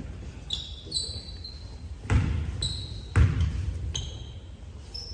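Basketball bouncing on the court, two loud bounces about two and three seconds in, with sneakers squeaking in short high chirps during play.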